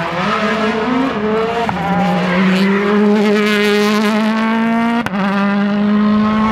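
Hyundai New Generation i20 WRC rally car's turbocharged 1.6-litre four-cylinder engine running at high revs as the car drives past, its note held high and rising slowly. Two abrupt breaks, about two and five seconds in.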